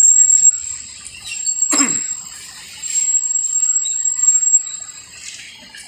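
A steady high-pitched whistle-like tone that sounds in three long stretches, broken by short gaps, with one short falling sweep about two seconds in.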